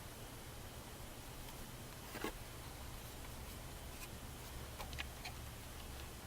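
Faint clicks and light scraping from a Saturn's plastic door chime module being taken apart by hand, the sharpest click about two seconds in and a few more around five seconds, over a low steady hum.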